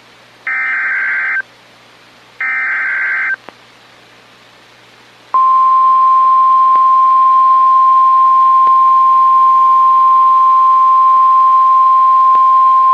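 NOAA Weather Radio alert signal: two one-second squawks of SAME digital header data, a second apart, then about five seconds in the steady single-pitch 1050 Hz warning alarm tone starts and holds. The tone marks that a warning message follows, here a fire warning.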